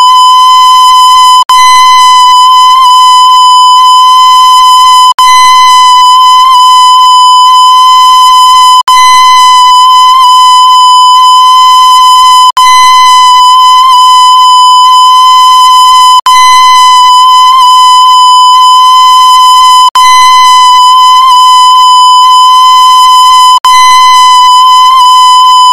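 Loud, steady electronic beep tone at one unchanging pitch, looped, with a brief dropout every three to four seconds.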